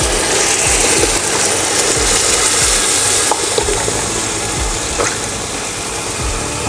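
Milk poured onto hot fried vermicelli, dates and nuts in a pan, sizzling and hissing loudly. About three seconds in the sizzle dies down while a spatula stirs the mixture.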